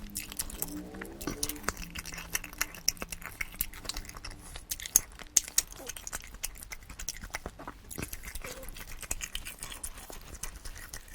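Close-miked chewing and wet mouth sounds of a person eating, with many small clicks and smacks. A low hum from the eater's voice sounds through roughly the first three seconds.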